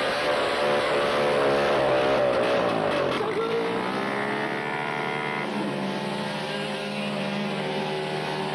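Honda dirt bike's engine held at high revs in a burnout, its note wavering up and down as the rear wheel spins. About three seconds in it gives way to a smaller minibike engine running at a lower, steadier pitch.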